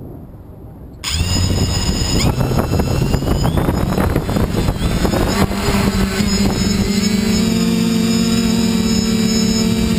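FPV quadcopter's brushless motors and propellers spinning up with a sudden loud start about a second in. The whine rises in pitch, then settles into a steady buzz as the drone lifts off.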